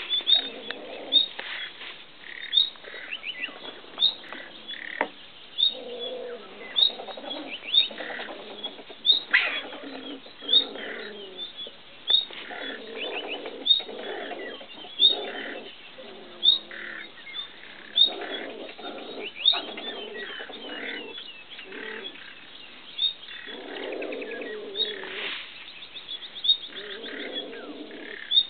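A pair of stone martens calling while mating: repeated short bouts of low chattering calls, broken by sharp high squeaks about once every second or so.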